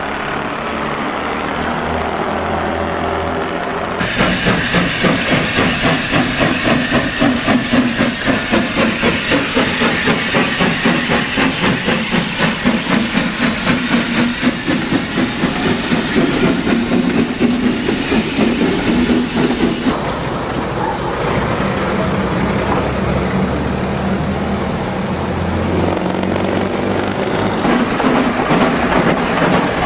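Model railway trains running on a layout, with a steady hiss. From about four seconds in to about twenty seconds in the sound takes on a regular beat, about two to three pulses a second.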